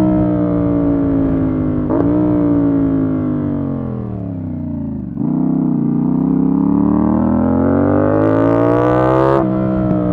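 CFMOTO 450SR S motorcycle's parallel-twin engine under way: revs fall as the bike slows, with a gear change about two seconds in. About halfway through the throttle opens and the revs climb steadily, then drop once for an upshift near the end before climbing again.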